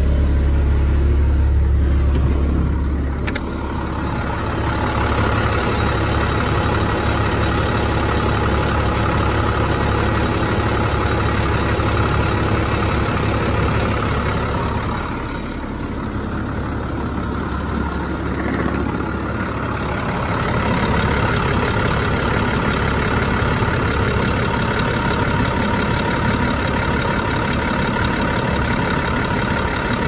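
The diesel engine of a 2001 International conventional school bus running steadily. For the first three seconds it is a deep drone heard inside the cab. A click comes about three seconds in, and after that the engine is heard from outside the bus.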